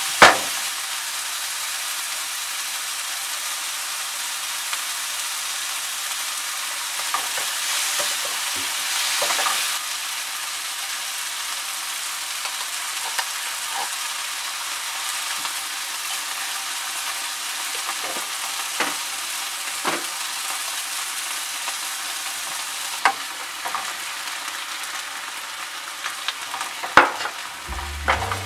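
Diced onion, tomato and bell pepper sizzling in oil in a frying pan, with a steady hiss. A wooden spatula stirring the vegetables knocks against the pan now and then, sharpest just after the start.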